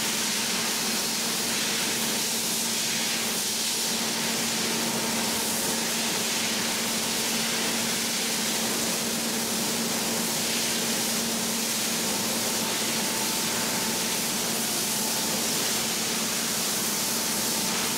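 Steady factory noise from an LPG cylinder painting line: a constant hiss with a low, even hum underneath.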